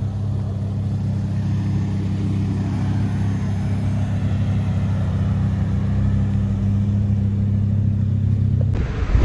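Straight-piped Ford Focus ST's five-cylinder engine running at a steady, unchanging low drone as the car rolls slowly. Near the end a sudden loud rush of wind buffets the microphone.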